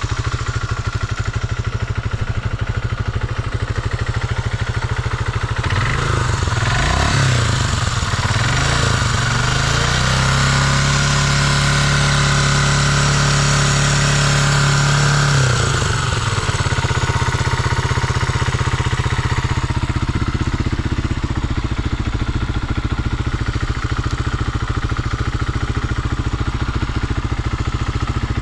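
Honda XL250S's air-cooled single-cylinder four-stroke engine running at a low steady speed, revved up and down a few times about six seconds in, then held at high revs for about five seconds before falling back to a low steady beat. It revs up cleanly with no abnormal noises, the sign of an engine in good order after long indoor storage.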